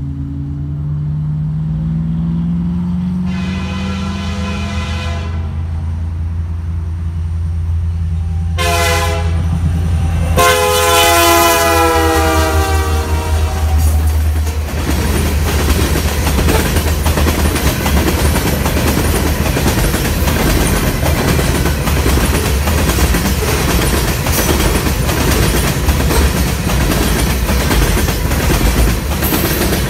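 Canadian Pacific SD70ACU diesel locomotive approaching, its engine note rising over the first few seconds, while its horn sounds a long blast, a short one, then a long one that ends as the locomotive passes, the close of a grade-crossing horn signal. From about halfway in, a long string of covered hopper cars rolls past close by: a steady rumble and clatter of wheels on the rails.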